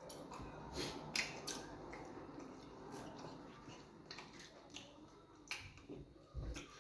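Eating sounds: chewing and wet mouth smacks over fufu and groundnut soup, an irregular string of short clicks.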